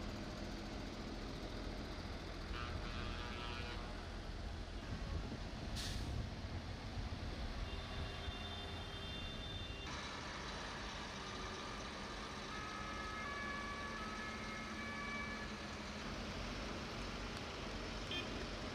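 Large farm tractors' diesel engines running as they drive along a city street: a steady low rumble and hum of engines and traffic, which changes abruptly about ten seconds in, with a few short high tones later on.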